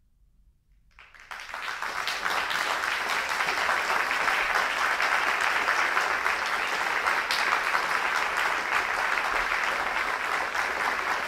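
Audience applauding, starting about a second in out of silence and quickly building to steady, sustained clapping.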